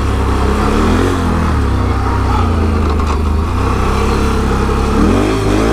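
Can-Am Renegade 1000 ATV's V-twin engine running while the quad is ridden, its pitch rising near the end as it accelerates.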